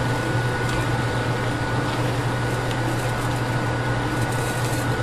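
Steady machine hum with a faint, constant high whine over it, and a few light clicks.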